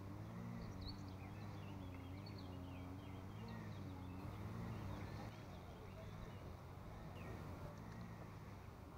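A steady low engine hum that wavers slightly in pitch, with small birds chirping over it.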